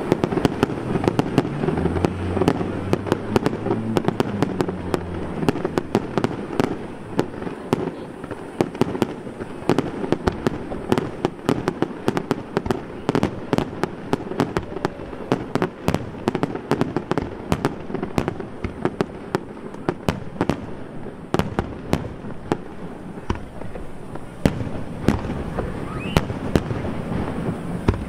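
Aerial fireworks shells bursting in quick succession, with many sharp bangs and crackles over a continuous rumble.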